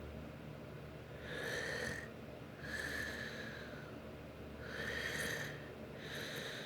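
A sleeping person snoring: four noisy breaths in two pairs, a breath in and a breath out each time, the pairs about three and a half seconds apart.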